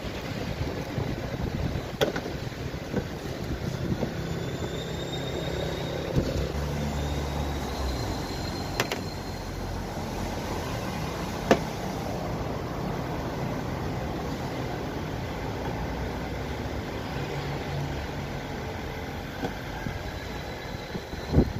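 Steady workshop background noise, broken by a few single sharp clicks and knocks from parts being handled at a car's front wheel arch.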